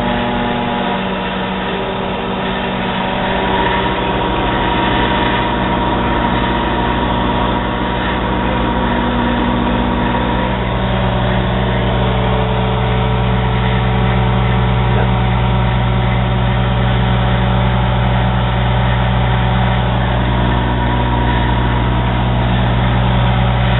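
2012 Kenmore countertop microwave oven running a 25-second cook, a steady electrical hum with fan noise. Its low hum grows a little stronger about halfway through.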